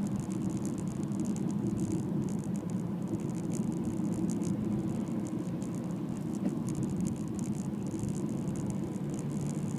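Car cabin noise while driving on a winding road: a steady low hum of engine and tyres on tarmac, with a flickering high hiss on top.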